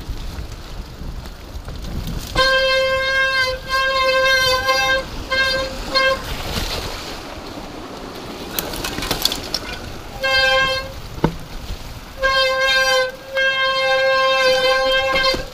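Wet mountain-bike disc brakes squealing: a steady, high-pitched tone that comes and goes in bursts from under half a second to nearly two seconds long each time the brakes are applied on the descent. Several short squeals come in the first half, one brief squeal about two-thirds of the way in, and two long ones near the end.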